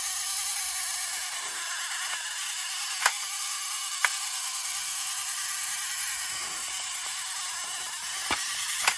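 Clockwork mechanism of a Tomy Pocket Arcade Space Dock wind-up game whirring steadily as it runs, with a few sharp plastic clicks from the game.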